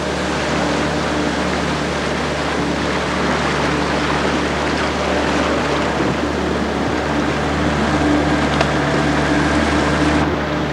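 Motorboat engine running steadily as a low hum, under the rush of fast-flowing flood water around the boat.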